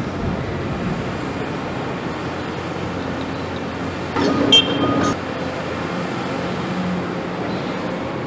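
Caterpillar 329E hydraulic excavator's diesel engine running steadily as the machine swings its emptied bucket back from a tipper truck. About four seconds in, a brief, louder squeal with ringing tones lasts about a second.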